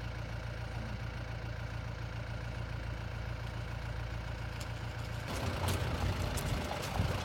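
Safari jeep engine idling steadily; about five seconds in it gives way to a louder, rougher rumble with scattered knocks and rattles as the jeep gets moving.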